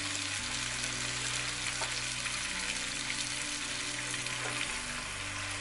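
Lamb and silver beet sizzling steadily in a steel pot on the stove while handfuls of silver beet leaves are tossed in.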